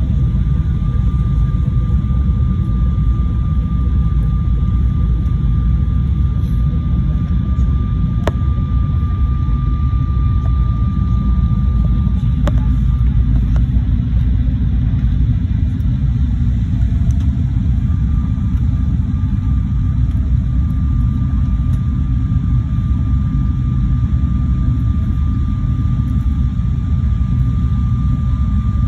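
Steady airliner cabin noise during the descent to land: a deep rumble of the jet engines and rushing air with a thin steady tone above it. There is a faint click about eight seconds in and another about four seconds later.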